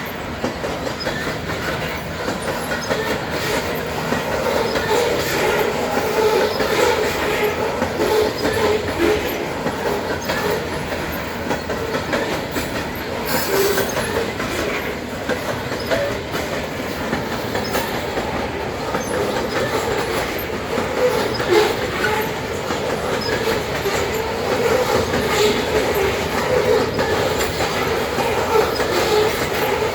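Freight train rolling past at steady speed: a continuous rumble of wheels on rail with a clickety-clack of wheels passing over rail joints, and a brief high hiss or squeal about 13 seconds in.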